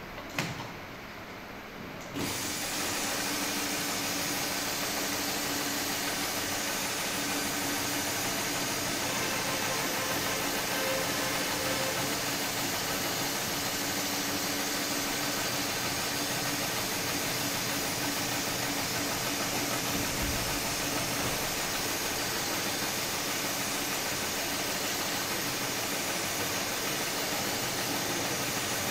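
Heavy-duty programmable pattern sewing machine (HighTex 71008S) sewing a stitch pattern through thick synthetic webbing. There are two sharp clicks, then the machine starts suddenly about two seconds in and runs steadily with a hum and a hiss.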